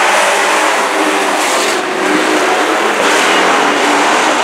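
A pack of dirt-track stock trucks racing around the oval, their engines running hard in a loud, continuous drone.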